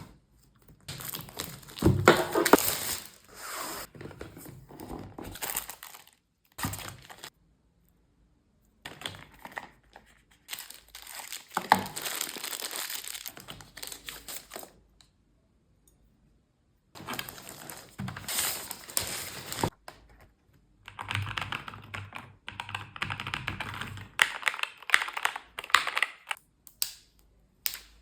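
Unboxing a NuPhy Air75 V2 keyboard: packaging paper and plastic crinkling and rustling, with clicks and knocks from handling the box and keyboard. It comes in several bursts, broken by moments of complete silence.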